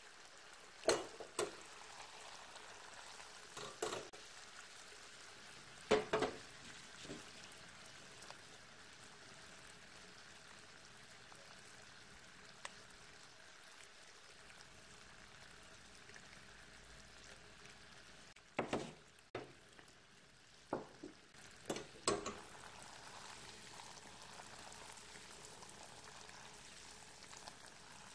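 Sugar syrup boiling in an enamel saucepan, a soft steady bubbling hiss with a few sharp clicks scattered through. It is being cooked unstirred into caramel and is just starting to turn golden.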